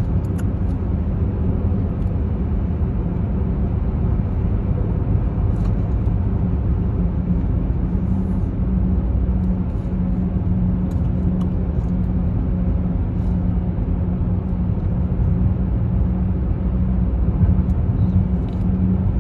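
Steady low rumble of a car driving, heard from inside the cabin as it travels through a road tunnel, with a steady hum that grows stronger about halfway through.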